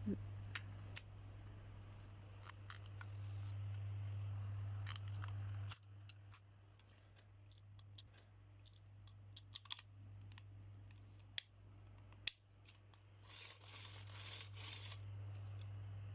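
Scissors cutting into packaging, with scattered small clicks of plastic parts being handled and a stretch of rustling or snipping about two-thirds of the way through, over a steady low hum.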